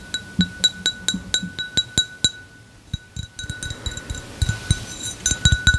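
A glass cup being clinked repeatedly, about four strikes a second, each strike leaving a ringing tone at the same pitch. After a brief lull about three seconds in, the clinks come faster and less evenly, with a few dull low knocks near the end.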